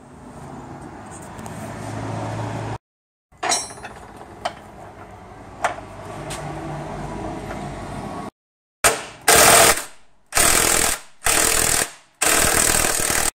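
Cordless impact wrench hammering in several short, loud bursts in the second half, breaking loose the 21 mm bolts on the front suspension. Before that there are a few sharp clicks and knocks from a hand socket wrench over a steady hum.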